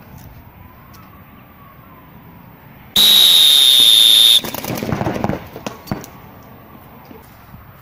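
An electronic buzzer sounds a steady high beep for about a second and a half, then a paintball marker fires a rapid burst of shots.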